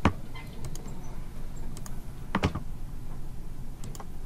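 A few sharp, separate clicks from someone operating a computer, the loudest about two and a half seconds in, over a steady low hum.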